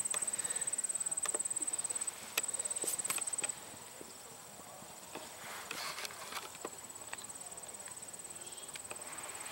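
Hoofbeats of a barefoot Spanish Mustang cantering on grass, heard as scattered, irregular thuds. A steady high-pitched whine runs over them and stops about three and a half seconds in, after which the sound is quieter.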